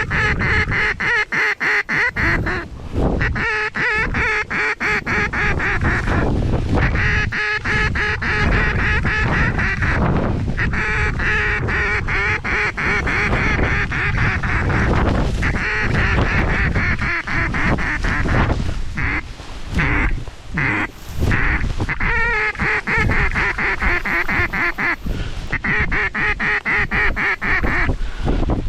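Fast, continuous duck quacking and chatter in long runs with short breaks, over a heavy low wind rumble on the microphone.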